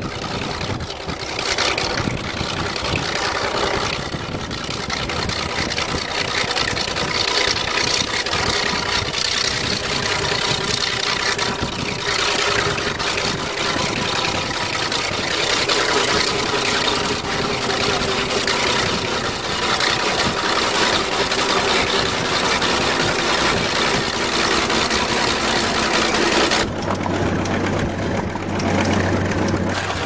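An engine running continuously with a rough, rattly noise. About 27 seconds in it cuts abruptly to a steadier, lower engine hum.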